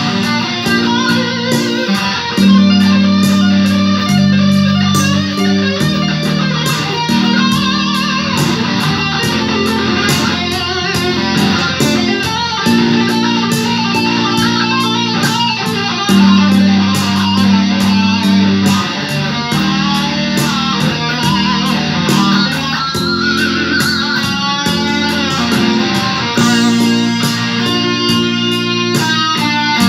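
Electric guitar played over a slow rock backing track: a bed of sustained chords under a lead line with wavering, bent notes, turning to rapid repeated picked notes near the end.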